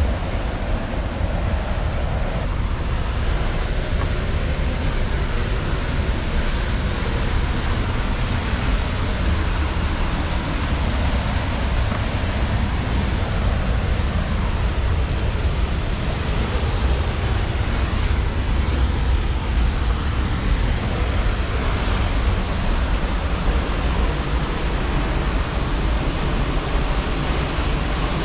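Okere Falls waterfall and rapids rushing steadily, an even, unbroken water noise with a strong low rumble.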